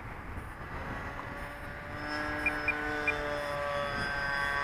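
Radio-controlled airplane's motor and propeller whining as it flies overhead. The whine comes in about halfway through, a steady many-toned hum that grows slightly louder, over a low wind rumble.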